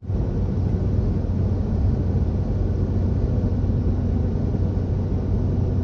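Steady road and engine noise of a car driving, heard from inside the cabin, with a constant low drone.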